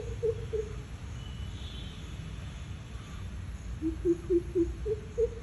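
Greater coucal giving its deep, hooting throat call: runs of short low hoots, about four a second, stepping slightly up in pitch. One run ends about half a second in and another begins about four seconds in.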